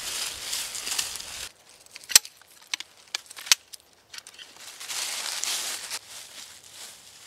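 Dry fallen leaves rustling and crunching underfoot, cut off abruptly, then a handful of sharp separate clicks and snaps, then another burst of rustling in the leaves about five seconds in.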